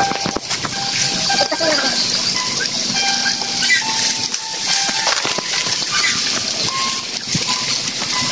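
Background music of short held notes at several pitches over a steady high hiss.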